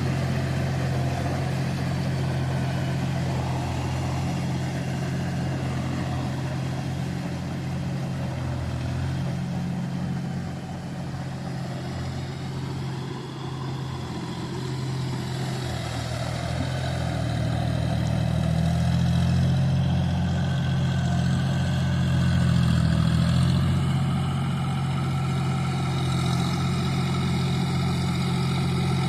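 Tractor engine running steadily while ploughing a field, easing off a little partway through and then working harder again.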